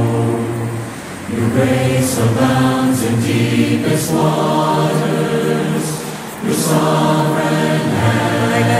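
Background music: a choir singing long held notes in phrases, with brief breaks between phrases about a second in and again after about six seconds.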